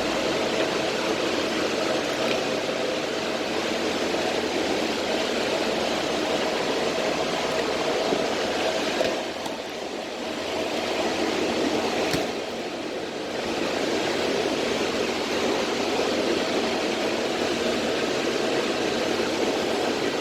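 Cooling fans of crypto-mining hardware running steadily: a loud, even whoosh of rushing air, dropping briefly twice near the middle.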